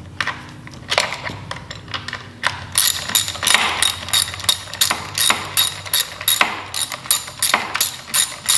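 Ratchet wrench clicking as bolts on a dirt bike's front fork are snugged up: a few scattered clicks at first, then from about three seconds in an even run of about four clicks a second.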